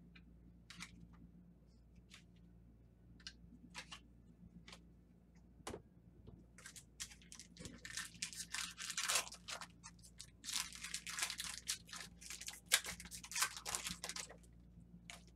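Trading cards being handled, with scattered light clicks and snaps as they are flipped, then a dense stretch of crinkling and tearing from about seven seconds in, lasting roughly seven seconds: a card pack's foil wrapper being torn open.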